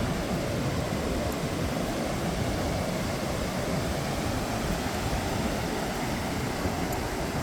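Steady rushing noise of ocean surf on a beach, with wind buffeting the microphone and making the low end flutter unevenly.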